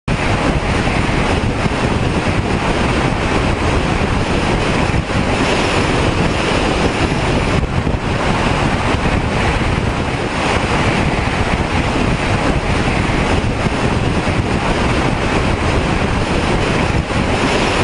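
Loud, steady wind rushing over the microphone of a camera mounted on the roof of a car driving at speed.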